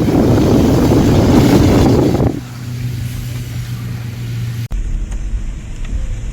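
Car driving on a snow-covered road: loud, rough road and engine noise for about two seconds, then dropping to a steadier low engine hum. The sound changes abruptly near the end.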